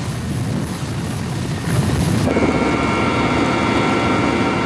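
Helicopter running: a low rotor thrum, then about two seconds in a sudden, louder change as a steady turbine whine joins it.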